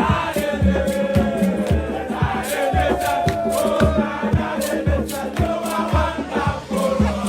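Background music: a song with group singing over a steady drum beat.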